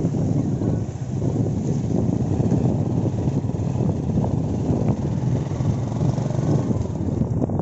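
Wind buffeting the microphone: a steady, gusting low rumble with no clear tone or rhythm.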